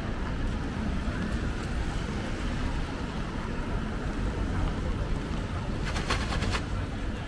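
City street ambience in light rain: a steady low rumble and hiss of traffic and wind on the microphone, with a short burst of rapid clicking about six seconds in.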